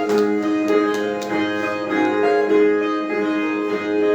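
Brazilian viola (ten-string steel-strung folk guitar) playing the instrumental break between sung verses of a repente. Plucked notes ring over a repeating melodic figure.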